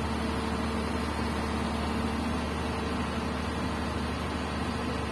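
Komatsu PC200 excavator's diesel engine running at a steady pitch.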